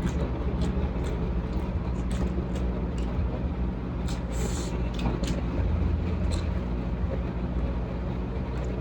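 Someone chewing food with short, sharp mouth clicks and smacks every half second or so, over a steady low hum.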